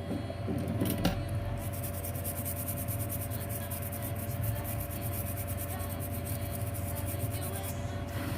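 Light rubbing and scrubbing on a phone circuit board being cleaned, with a click about a second in, over a steady electrical hum from the workbench equipment.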